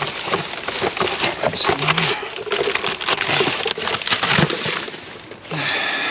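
Rummaging through a dumpster's junk: plastic, cardboard and scrap being pulled about, with irregular rustling, knocks and clatters.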